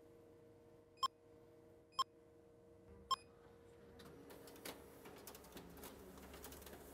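Sharp MX-6500/MX-7500 copier touchscreen giving short key-press beeps, three of them about a second apart, over a faint steady hum. In the last few seconds a faint wash of sound slowly rises.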